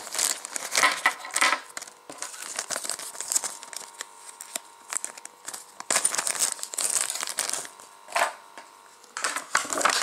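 Clear plastic parts bags crinkling and rustling as they are handled and emptied, in several bursts with a quieter stretch in the middle.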